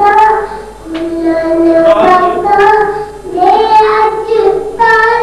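A boy singing a naat unaccompanied, holding long, ornamented notes in phrases, pausing briefly for breath twice.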